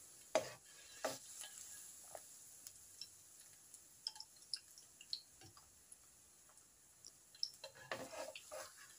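Metal spatula clicking and scraping against a nonstick wok as frying bitter gourd slices are stirred and scooped out, over faint sizzling oil. The taps come scattered and quiet, busier near the end.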